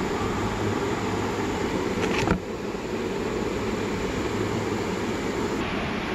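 Steady background hiss and rumble, with a single short click about two seconds in.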